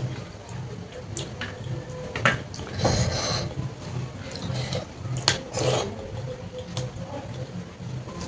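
Eating sounds: chewing and wet mouth noises from a meal of watery soaked rice (panta bhat), with a few sharp clicks against the plate.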